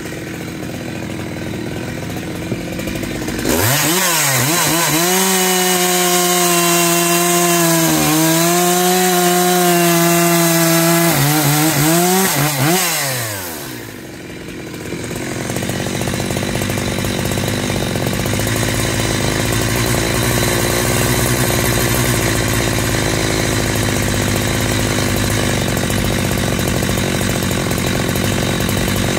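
Big-bore 52 mm Husqvarna 372XP two-stroke chainsaw, fitted with a 272XP pop-up piston, idling, then held at high revs from about three seconds in, its pitch dipping a couple of times before it drops back to idle. It picks up again a couple of seconds later and runs hard to the end, cutting into a firewood round.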